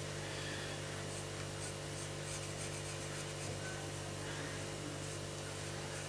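Pencil drawing lines on carved wood: faint short scratching strokes, mostly in the first half, over a steady low hum.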